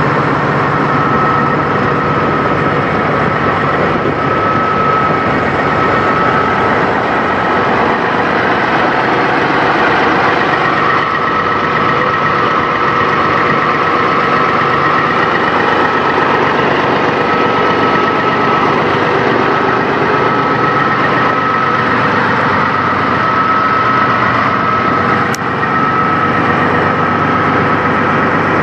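Semi truck's diesel engine idling steadily, a constant rumble with a steady high tone over it. One short click about 25 seconds in.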